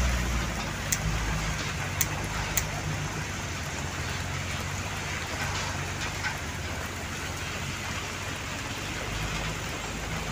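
Steady rain hissing on a wet road, with a truck's engine running low underneath, stronger at the start and again near the end. There are three sharp ticks in the first three seconds.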